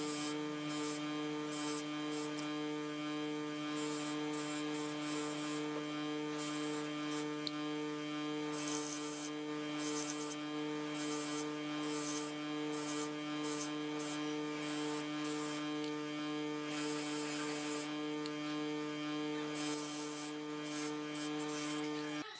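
A small electric motor runs at a steady pitch with a humming whine. Irregular bursts of scraping hiss run over it, and it cuts off suddenly near the end.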